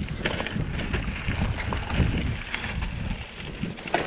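Mountain bike rolling along a rocky dirt singletrack: the tyres crunch over dirt and stones, with scattered clicks and rattles from the bike, over a low rumble of wind buffeting the microphone.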